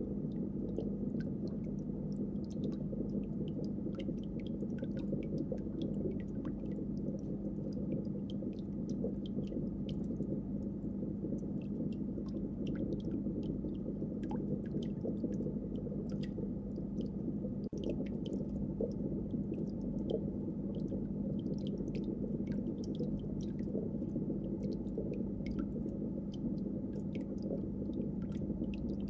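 Aquarium tank's steady low hum with a constant tone, sprinkled throughout with many small clicks and crackles.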